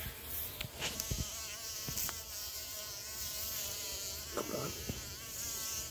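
A female bumblebee held in tweezers, buzzing steadily with a slightly wavering pitch, the defensive buzz of a captured bee with its stinger out. A few light clicks in the first two seconds.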